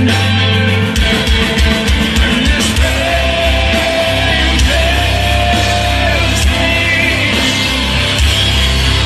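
Rock band playing live at full volume: the drums come in about a second in, under guitars, bass and a sung vocal line with long held notes.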